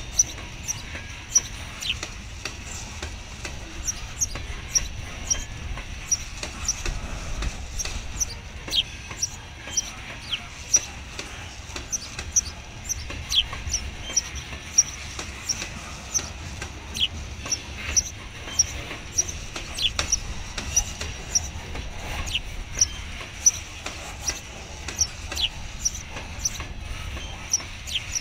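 Freight train cars rolling slowly past with a low rumble, frequent sharp clicks and clacks from the wheels and couplers, and many brief high squeaks.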